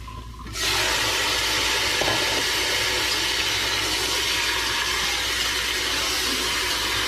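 Chicken pieces going into a pan of hot oil and sautéed aromatics: a loud sizzle that starts suddenly about half a second in and keeps on steadily.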